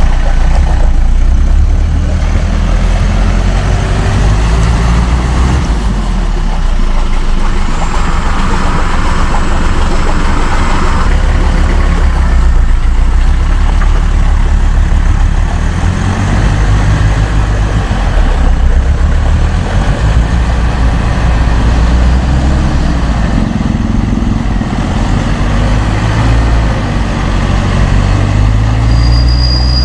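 UAZ off-road vehicle's engine running hard under load as it climbs out of a mud hole up a steep bank with winch help, its note rising and falling.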